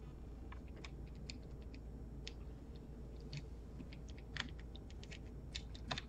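Faint, irregular light clicks and taps of a small hand tool working at a laptop's metal hinge and chassis, one a little louder about four and a half seconds in.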